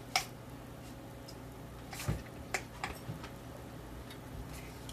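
Handling noise from a new angle grinder being picked up and turned over: a few sharp separate clicks and knocks of its plastic housing. The loudest come just after the start and about two seconds in.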